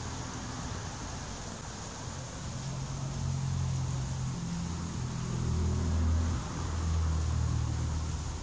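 Low hum of a motor vehicle engine over a steady outdoor hiss, growing louder from about two and a half seconds in and loudest around six seconds.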